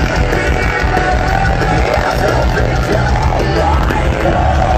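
A live metal band playing loudly through a festival PA, with distorted guitars and heavy drums, heard from within the crowd.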